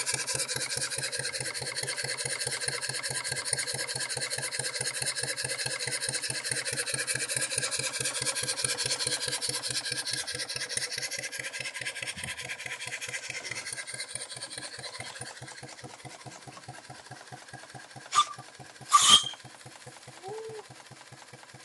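3-inch scale Marshall traction engine running under steam: a rapid, even beat from the engine's motion and exhaust over a steady steam hiss, getting quieter through the second half. Two sharp knocks come near the end.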